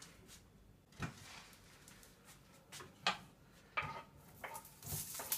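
A few light knocks of a wooden cutting board and utensils against a frying pan, then near the end diced onion scraped into hot oil starts to sizzle.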